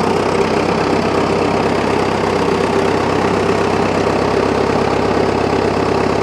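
1961 Case 830-series diesel tractor engine idling steadily.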